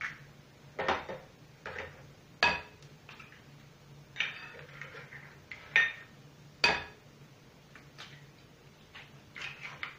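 Eggs cracked one after another on the rim of a glass mixing bowl: about seven sharp taps on glass, each with a brief ring, spread unevenly.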